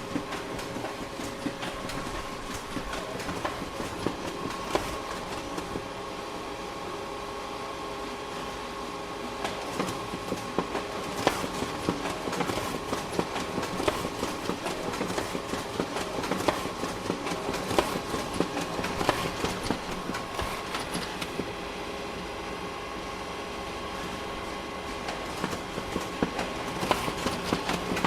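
Photocopier running: a steady motor hum under rapid mechanical clicking and clattering. The clatter eases off for a few seconds twice and then picks up again.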